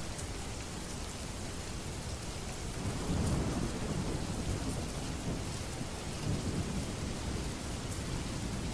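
Steady rain falling, with a low rumble of thunder that swells about three seconds in and rolls on through the rest.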